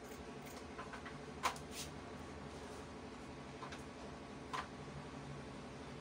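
Fabric scissors cutting satin: a few short, sharp clicks of the blades, the loudest about one and a half seconds in and another near four and a half seconds. A low steady hum runs underneath.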